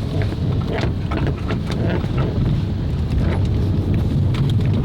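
Van driving slowly, a steady low rumble of engine and road heard from inside, with scattered small rattles and knocks.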